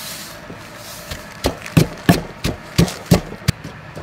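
Pestle pounding chopped chilies and sugar in a mortar, starting about a second in: a steady run of sharp strikes, about three a second.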